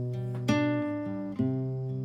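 Background music on acoustic guitar, a new chord struck about every second and left to ring.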